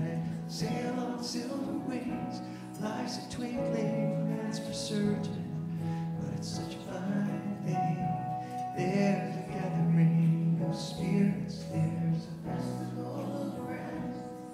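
A man singing into a microphone, accompanied by sustained chords on an electronic keyboard.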